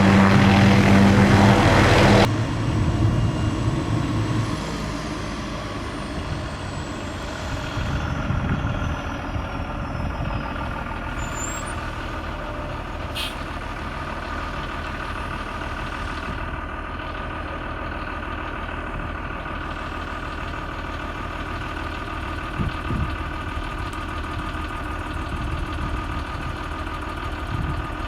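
MD 500E helicopter running loud for about two seconds, then cutting abruptly to a quieter, steady running sound with a high whine that slowly falls in pitch partway through.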